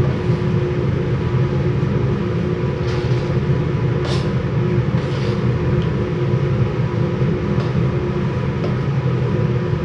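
Kitchen range hood exhaust fan running steadily with a low hum. A few light scrapes of a ladle against a large steel stockpot about three to five seconds in.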